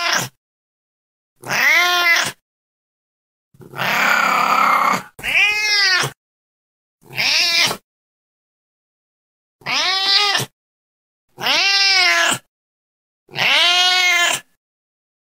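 Domestic cat meowing repeatedly, about seven separate meows each rising then falling in pitch. A longer, rougher yowl comes about four seconds in.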